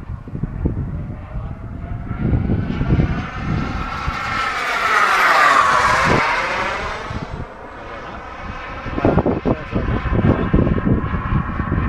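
Radio-controlled model jet flying past: its sound swells to a peak about five to six seconds in, where its high whine drops in pitch as it goes by, then fades. Gusty rumbling runs underneath.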